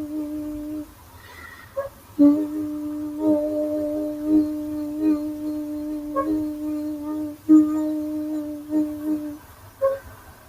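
A person humming one steady note as sound-healing toning, held in long tones with small pulses along them. The tone breaks off about a second in, resumes a second later, and stops near the end.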